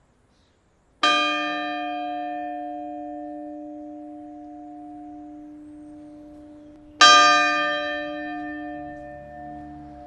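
A single church bell of Grensáskirkja struck twice, about six seconds apart. Each stroke rings out and fades slowly, and the second is struck while the first is still ringing.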